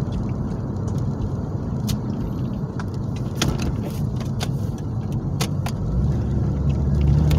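Car driving, heard from inside the cabin: steady low road and engine rumble with a few light clicks in the middle. The low engine hum grows louder about six seconds in.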